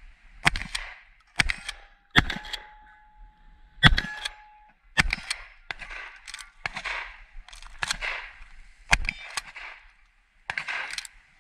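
A string of about ten shotgun shots, roughly one a second and unevenly spaced, fired at steel plates with 00 buckshot. After the third shot a steel plate rings on for a couple of seconds.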